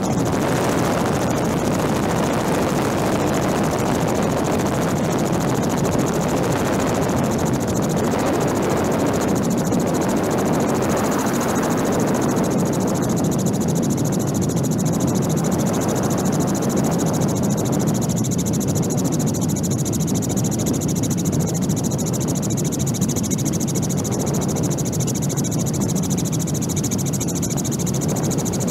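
Helicopter running steadily, heard from aboard the helicopter carrying the camera: a constant rotor and engine noise.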